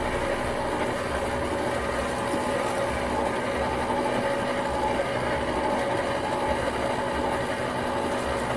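Steady mechanical hum with a low, pulsing throb underneath.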